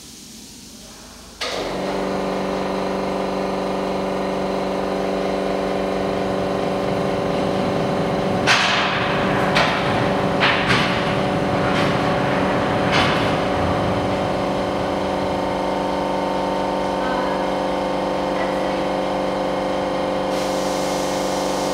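An EVA glass laminating machine's motor starts about a second in and runs with a steady hum, with a hiss over it that stops near the end. Five or six sharp metal knocks come in the middle as the machine's layer and loading table are handled.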